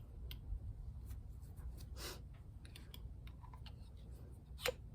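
Faint, scattered clicks and light taps of small metal spray-gun parts being handled as a set screw is loosened and a part is fitted into the gun body. There is a brief rustle about two seconds in and a sharper click near the end.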